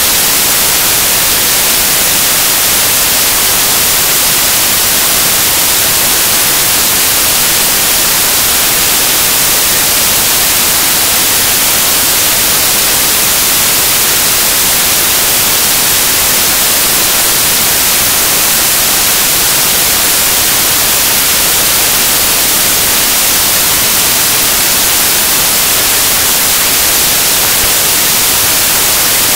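Loud, steady static hiss with nothing else audible: the lecture recording's audio signal has dropped out, leaving only noise.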